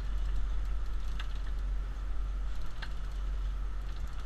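A big conventional saltwater fishing reel being cranked against a fish, its gears whirring with a few sharp clicks, over a steady low rumble from the boat.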